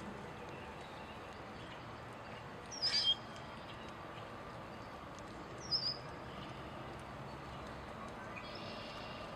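Two short, high, falling bird chirps, the first a quick double about three seconds in and a single one near six seconds, over a steady outdoor background hiss.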